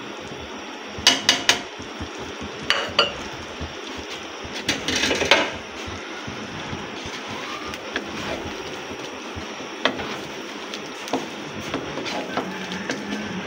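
A spoon knocking and scraping against a non-stick wok as spice-coated chicken pieces are stirred: three sharp clacks about a second in, a busier run of knocks and scrapes in the middle, then lighter taps.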